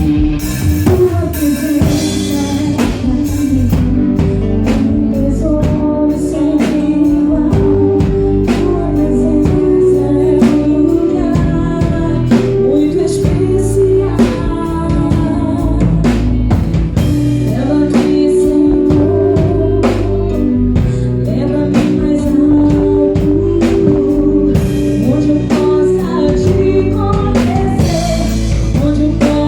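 Live gospel band playing, with singing over a drum kit.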